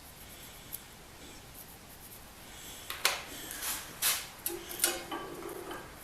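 Faint room tone, then from about halfway a handful of sharp knocks and scrapes as short pieces of steel stock are handled and set in a bench vise.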